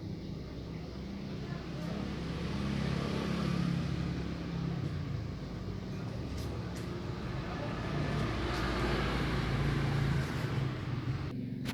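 Passing road traffic: a motor vehicle's engine sound grows louder and fades away, twice, then cuts off abruptly just before the end.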